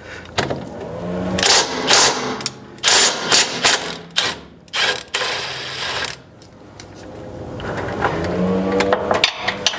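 Hand tools on the car's underside bolts: a run of sharp ratchet-wrench clicks and metal knocks as a bolt is worked loose, then a steady hum that builds near the end.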